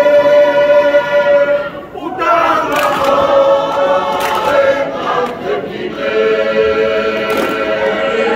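A large group of voices singing together in a Tongan choral dance-song, held notes in harmony, with a short break about two seconds in before the singing picks up again.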